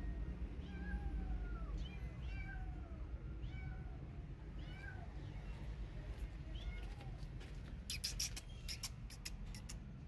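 A kitten crying, a string of short mews about once a second, each rising and falling in pitch. Near the end comes a quick run of sharp clicks.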